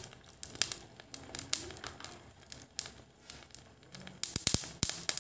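Scattered light clicks and crackles from a pot of mung dal and water on the stove as salt is spooned in, with a quick cluster of a few sharp taps about four seconds in.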